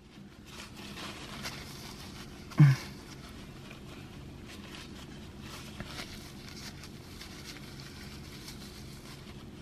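Faint rustling of a paper napkin rubbed against the lips to wipe off lipstick, over a low steady hum, with a short grunt about two and a half seconds in.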